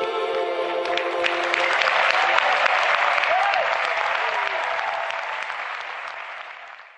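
An audience applauding at the end of a live song. The band's last chord rings for the first second or two, the clapping swells over it, and then the applause fades out near the end.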